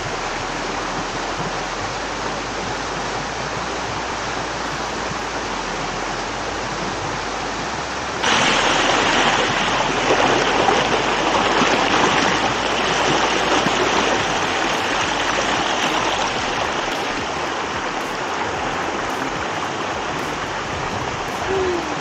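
A small waterfall and stream, water rushing over rocks with a steady hiss. About eight seconds in it turns louder and brighter, heard from right beside a small cascade.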